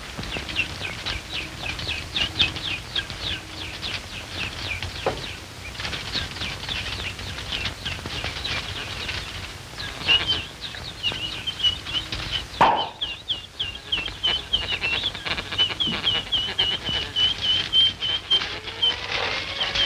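Bird twittering: streams of short, high falling chirps, crowded and irregular at first, then settling to about three a second. A single thump comes about two-thirds of the way through, and a sliding tone rises near the end.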